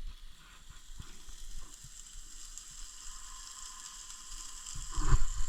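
Hamburger patty sizzling steadily in a hot frying pan, a soft even hiss with a few faint pops.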